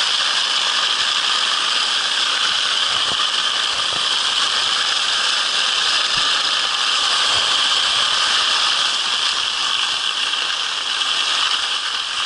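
Skis sliding fast over snow, a steady hiss with little low rumble.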